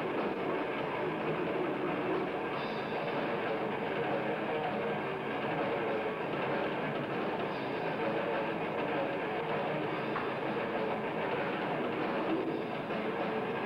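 Death metal band playing live: heavily distorted electric guitars and bass over fast drumming, a dense, unbroken wall of sound. The recording is muffled, with nothing above the upper midrange.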